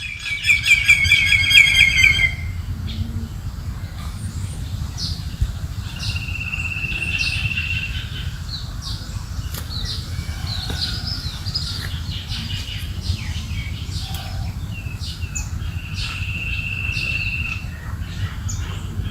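Wild forest birds singing: a loud, rapid run of falling call notes for about the first two seconds, then scattered short chirps and two long, even trills. A steady low rumble runs underneath.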